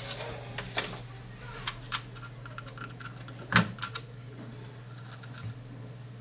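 Small clicks and taps from handling wires and a soldering iron on a circuit board, the sharpest one about three and a half seconds in. A short faint sizzle of solder and flux at the start, over a low steady hum.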